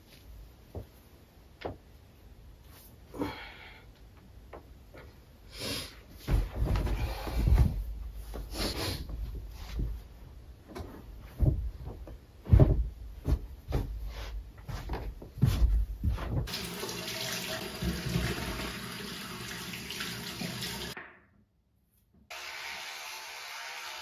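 Duvet and pillows rustling, with several soft thumps, as a bed is made. Then water rushes steadily for about four seconds and stops abruptly. After a moment of silence, an electric toothbrush buzzes steadily near the end.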